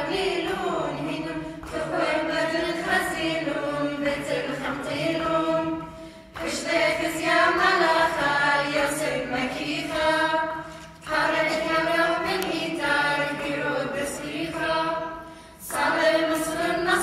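Small mixed choir of men and women singing a hymn of the Assyrian Church of the East a cappella. The voices hold long sustained phrases, with brief breaks between phrases about every four to five seconds.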